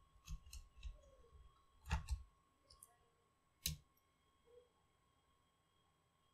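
Light clicks and taps as a 2.5-inch laptop hard drive in its metal mounting bracket is pressed down and screwed into the bay with a small screwdriver. A few soft clicks come first, then a louder double click about two seconds in and a single sharp click a little later.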